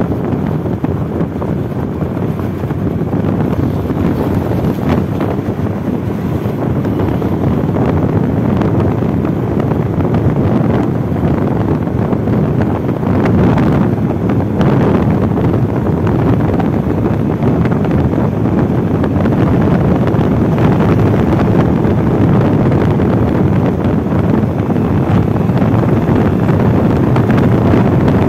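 Wind buffeting the microphone of a moving motorcycle, with engine and road noise underneath. It grows a little louder over the first several seconds, then holds steady.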